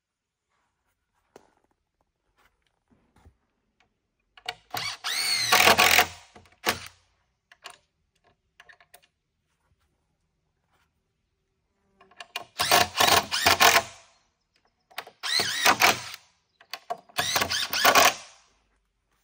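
Power drill driving screws into the lumber of a wooden rack, in four short runs of one and a half to two seconds each. The motor's pitch rises as the first screw goes in. There are a few light knocks between the runs.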